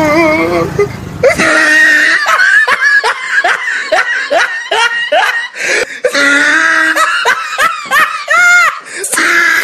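A person laughing loudly in a long run of quick, rising ha-ha bursts, about three or four a second, with a few longer drawn-out laughs near the end.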